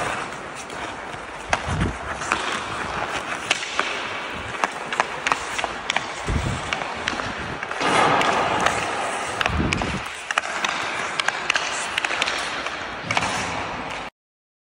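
Ice hockey skates carving and scraping on rink ice, with quick sharp clicks of the stick blade on the puck. Louder skate scrapes come about eight seconds in and again near ten seconds, and the sound cuts off suddenly near the end.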